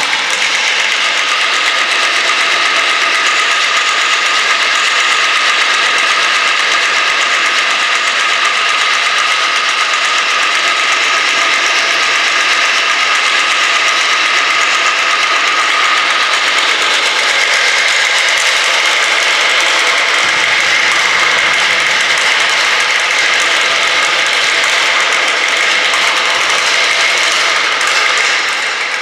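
Percussion trio playing objects on tabletops in a loud, continuous rattling, buzzing texture, with steady high ringing pitches held over it. A low rumble joins about two-thirds of the way through.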